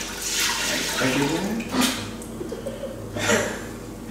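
Soy milk pouring in a steady stream from a glass jug into the stainless steel inner pot of an Instant Pot pressure cooker. The stream thins out after about two seconds as the jug empties.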